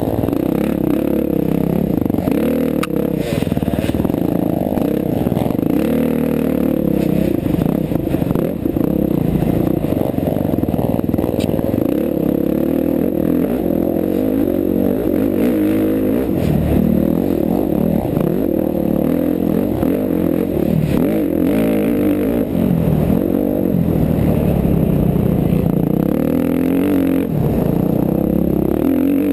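KTM 350 XC-F dirt bike's single-cylinder four-stroke engine, heard from on the bike, revving up and down continually as the rider accelerates, backs off and shifts.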